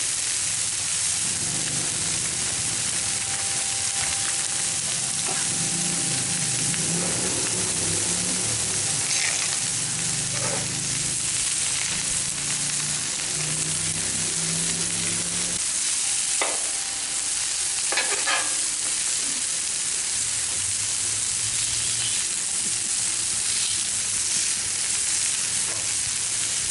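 Stir-fry food sizzling steadily on a Blackstone flat-top griddle, with a few sharp clicks partway through.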